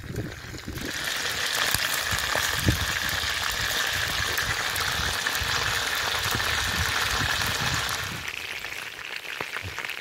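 Chicken wings shallow-frying in hot oil in a cast iron skillet: a steady sizzle that grows louder about a second in and eases off near the end.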